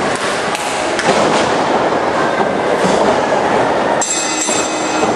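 Loud, steady echoing din of a crowd in a gymnasium around wrestling rings, with a sharp knock about a second in from action in the ring.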